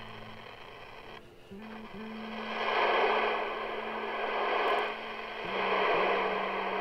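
Receive audio from a Eurosonic ES200 CB handheld's speaker: after a brief dip about a second in, a hiss of static comes up and holds over a steady low hum. The receiver is picking up again, its receive fault traced to a tampered coil in the RF front end.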